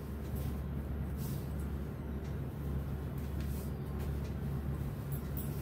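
A steady low hum of room noise, with a few faint, brief rustles of silk saree fabric being handled.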